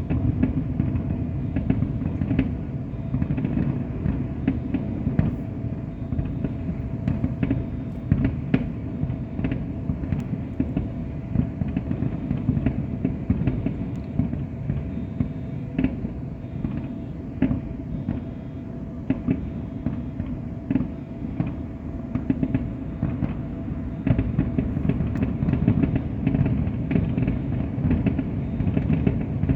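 Aerial fireworks going off continuously: many rapid booms and crackles over a steady low rumble.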